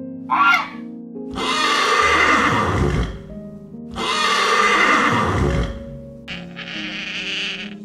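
Horse neighing twice, each call long and loud with a falling pitch, over background music with held notes. Just before, a Canada goose gives one short honk, and near the end there is a shorter, rougher sound.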